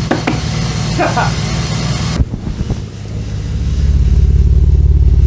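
BMW M50B25 straight-six engine idling with a misfire, a steady low pulsing that changes abruptly about two seconds in and then grows louder and closer.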